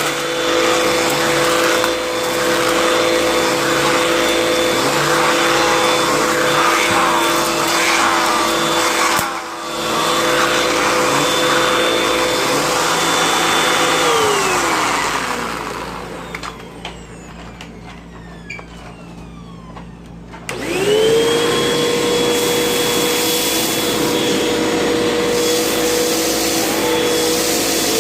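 Hoover vacuum cleaner running with a steady motor whine. About 14 seconds in it is switched off and winds down with a falling pitch, and after a short lull it is switched back on, spinning up to speed and running on.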